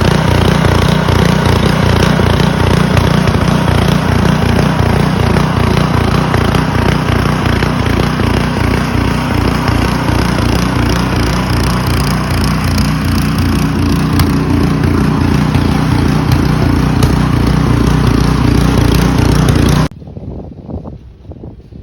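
An engine running steadily with a rapid low pulsing, loud, until it cuts off abruptly near the end.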